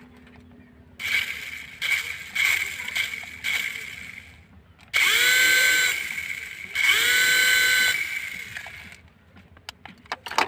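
A small electric motor whirring in bursts: several short ones, then two longer runs of about a second each, its pitch rising as it spins up at each start.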